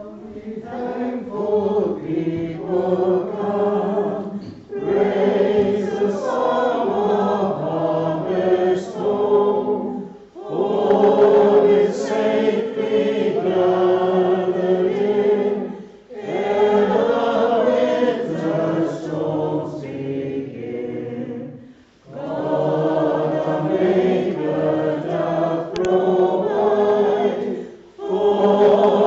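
A choir singing in long phrases of about five to six seconds each, with short breaks between them.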